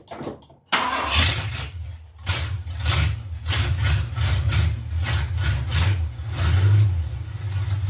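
1975 Ford F100's V8 fires up about a second in and runs loud through newly fitted long-tube headers. It is running on seven cylinders because one spark plug wire is still off.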